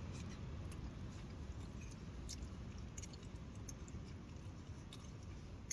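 A person chewing a mouthful of salmon noodles, with scattered small clicks, over a steady low rumble of wind.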